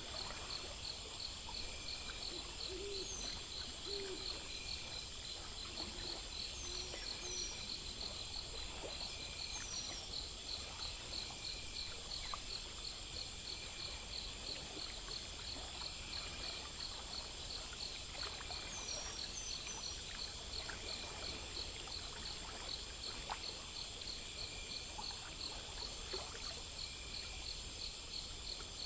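Night insect chorus: crickets chirping in an even pulse of about four chirps a second over a constant high buzz. An owl hoots a few times in the first several seconds, and short falling chirps come now and then.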